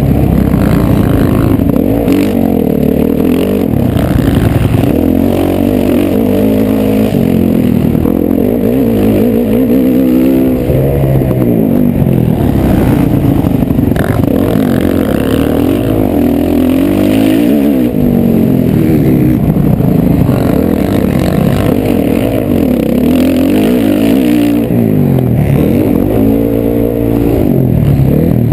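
Dirt bike engine racing on a motocross track, heard from a helmet-mounted camera: the revs climb and drop over and over as the rider accelerates, shifts and slows for turns.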